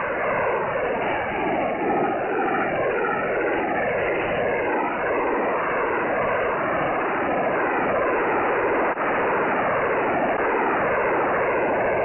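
Shortwave lower-sideband signal from a Brazilian 'peskie' sending waterfall images, received on a KiwiSDR: a dense, ever-shifting wash of sweeping tones and noise that draws pictures on a spectrum display. It is cut off sharply above about 3 kHz by the receiver's sideband filter, with a brief dropout about nine seconds in.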